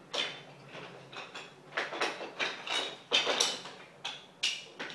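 Irregular clacks and knocks of small hard toy pieces and a box being handled, several in quick succession, loudest a little past the middle.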